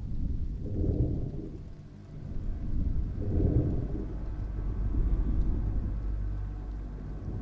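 Deep low rumbling that swells up twice, about a second in and again around three and a half seconds, over a steady deep hum.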